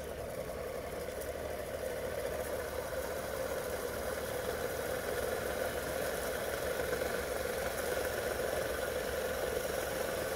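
3D-printed magnet rotor on ceramic bearings spinning over a flat coil under a Bedini pulse circuit, making a steady whirring hum that grows louder over the first few seconds as it comes up to speed.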